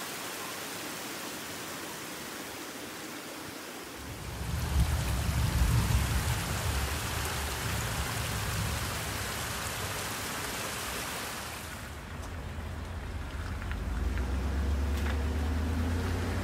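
Steady hiss of rain over a flooded field. About four seconds in it gives way to louder, rushing muddy runoff water cascading down a rocky channel. Near the end the hiss drops and a low steady rumble of wind on the microphone remains.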